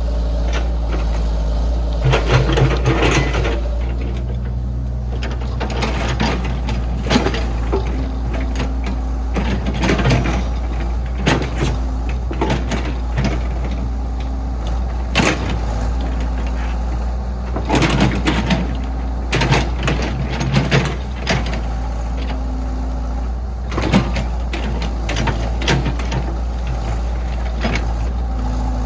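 Diesel engine of heavy farm machinery running steadily, its pitch shifting now and then as it works. Repeated short metal clanks and scrapes come throughout, with clusters of them about two seconds in, around eighteen to twenty-one seconds in, and about twenty-four seconds in.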